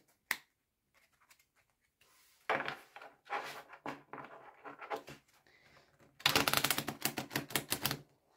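Playing cards being handled: cards slid and rubbed against the deck, then, about six seconds in, a rapid run of clicks as the deck's edges are riffled.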